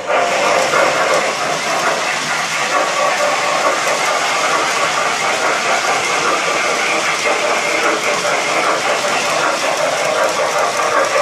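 Lionel 6-18040 Norfolk & Western J-class model steam locomotive and its passenger cars running on three-rail track: a steady rattle of wheels on the rails with the locomotive's motor.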